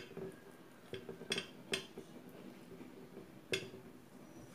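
Light clicks and clinks of a dinner plate and spoon during a meal eaten by hand, about five in all, spaced irregularly; the sharpest comes about three and a half seconds in.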